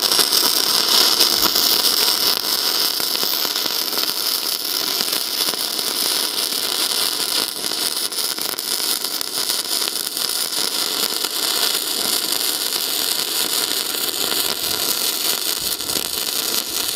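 Gasless MIG welding with self-shielded flux-cored wire, vertical up at 17 V and 5 m/min wire feed: the arc gives a steady crackle and hiss. The welder judges the current still too high, as it undercuts the metal.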